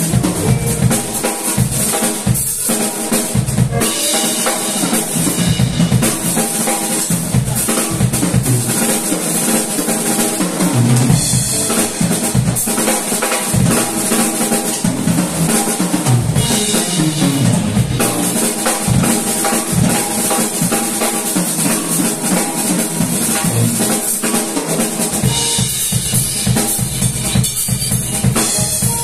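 Live band playing an instrumental funk tune: drum kit, electric bass, electric guitars and keyboard, with steady drumming throughout.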